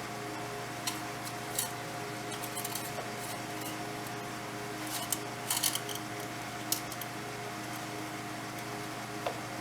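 Light metallic clicks and small rattles, a few scattered single ones and a quick cluster about five seconds in, as the engine oil dipstick is pulled and handled to read the oil level. Under them runs a steady hum.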